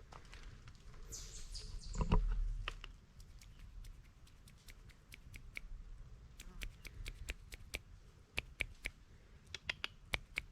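Footsteps on the trail, a string of irregular sharp crunches and clicks. A bird gives a short high call that falls in pitch about a second in, and a dull thump about two seconds in is the loudest sound.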